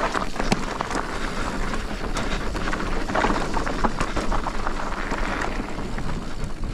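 Mountain bike, a Commencal Meta TR, ridden fast down a rough bike-park trail: a steady rush of wind on the microphone and tyres on dirt, with a constant stream of rattles and sharp knocks from the bike over bumps.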